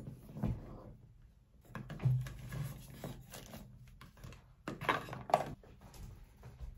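Rustling, clicks and light knocks of things being handled and packed into a handbag, including a plastic water bottle, with louder bursts about two seconds in and around five seconds in.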